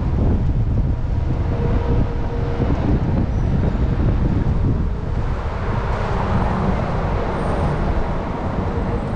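Steady wind noise buffeting the microphone over the low rumble of a moving tour bus and city traffic.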